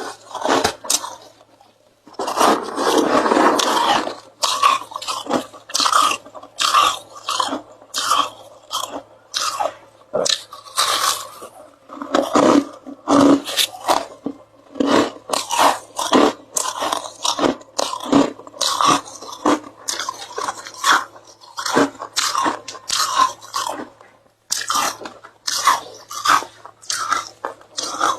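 Ice being bitten and chewed close to the microphone: a continuous run of crisp crunches, about two a second, with a longer grinding crunch about two seconds in.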